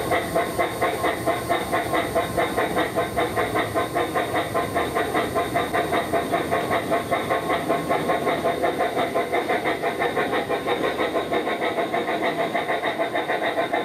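Bachmann G-scale Thomas the Tank Engine model running along its track, its onboard sound unit playing steam-locomotive chuffing in a rapid, even rhythm.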